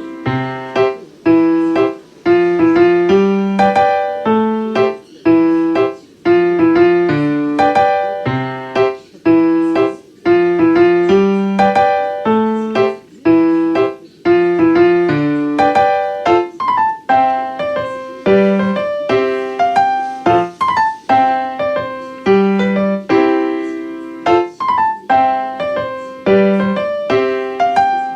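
Background solo piano music: a continuous flowing melody of single notes over chords.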